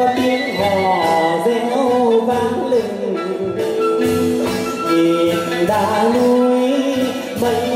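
Chầu văn ritual music: a male singer's winding, sliding melody over plucked lute and a steady percussion beat.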